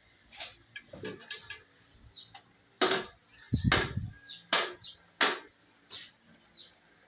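A series of irregular knocks and clicks, with a dull thump about three and a half seconds in as the loudest.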